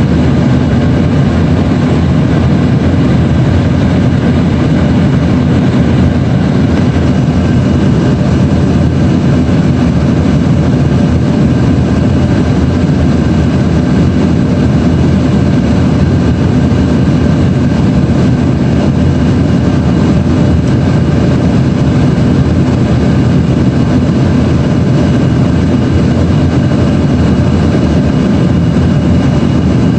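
Steady cabin noise of an Embraer twin-turbofan regional jet in flight: a continuous engine drone and airflow rush, with a faint steady whine above it.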